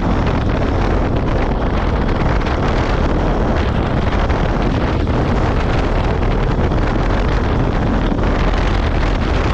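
Wind rushing over the microphone with steady engine and road noise from a motorcycle ridden at speed.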